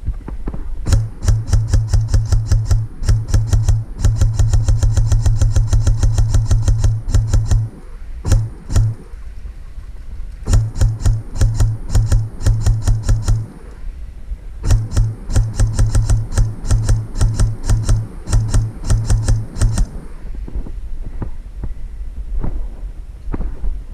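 Airsoft rifle firing rapid strings of shots in three long volleys, each run a fast series of sharp clacks over a low mechanical buzz, then only a few scattered clicks near the end.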